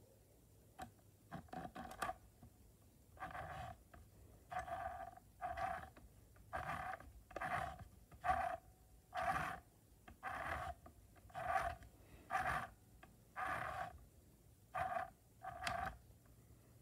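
Small electric mini sewing machine's motor running in short bursts, about one a second, each with a steady whine.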